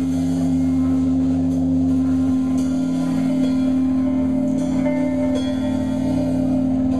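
A live rock band holds one steady, droning chord on electric guitars and keyboard. Higher notes come in over it about halfway through.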